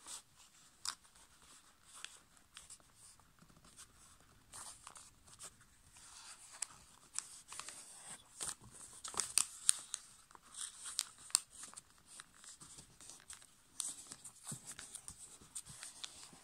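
A sheet of A5 copy paper being folded and creased by hand on a tabletop: faint rustling and crinkling with scattered small sharp crackles, busiest about nine to eleven seconds in.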